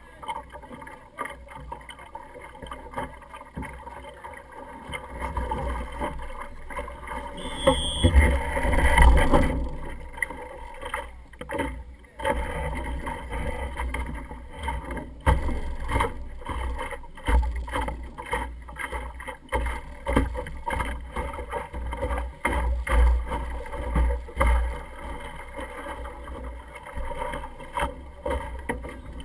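Water splashing and rushing along the hull of an Optimist sailing dinghy under sail, with wind rumbling on the microphone, loudest in a gust about eight to ten seconds in. Scattered knocks from the boat come through now and then.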